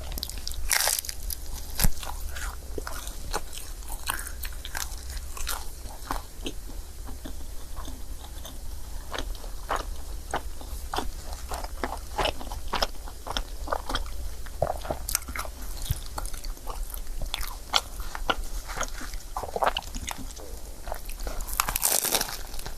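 Close-miked eating of a crepe: bites and chewing in a run of irregular short clicks and mouth noises.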